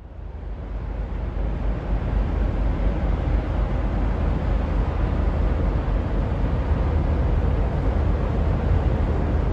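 Steady low rumble of an approaching laker tanker's engines, heavy in the deep bass, building up over the first couple of seconds and then holding steady.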